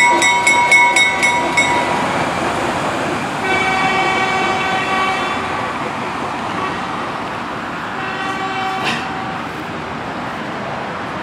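Diesel switcher locomotive sounding its horn several times as it backs away. The first blast dies out in the opening second and a half with a bell ringing over it, a longer blast follows about three and a half seconds in, and a shorter one comes about eight seconds in. The rumble of the engine and the cars fades slowly as the train recedes.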